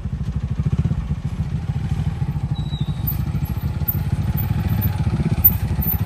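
Motorcycle engine running at low speed, a rapid, even low pulsing.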